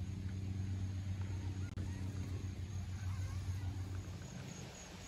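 A motor vehicle's engine running with a steady low hum that fades away about four seconds in. A high, evenly pulsing insect chirp comes through near the end.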